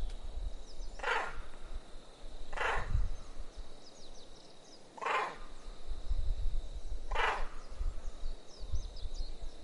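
An animal calling four times at uneven intervals of one and a half to two and a half seconds, each call short and harsh. Behind it are a steady high thin tone with faint chirps and a low wind rumble.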